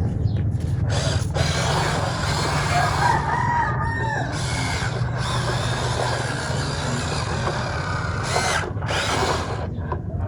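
RC excavator's motors running steadily, a continuous low hum under a hiss, with a short wavering call about three seconds in.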